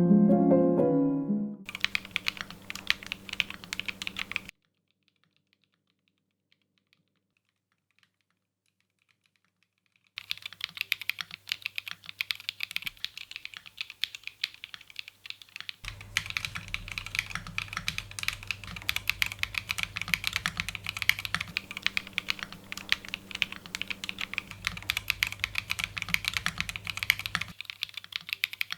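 Mechanical keyboard typing, a fast, dense clatter of keystrokes, recorded in turn through different microphones so the background noise changes between passages, with a steady low hum under the later ones. It opens with the last notes of a piano tune, and the typing stops for about six seconds soon after the start.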